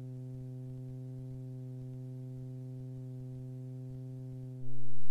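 Super Petrel amphibian's engine running steadily while the aircraft taxies on the water, heard as a low, even hum with a ladder of overtones. The hum stops abruptly near the end.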